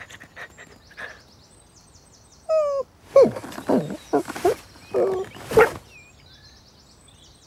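Cartoon dog vocal effects, voiced by a person: a short falling whine, then about five short pitched noises that bend up and down. Faint chirping of birds sounds behind it.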